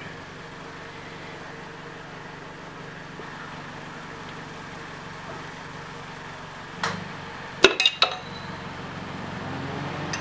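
A few sharp metallic clinks, one just before seven seconds and a quick ringing cluster about a second later, as a piston and connecting rod are worked out of a bare LS1 V8 block, over a steady low background hum.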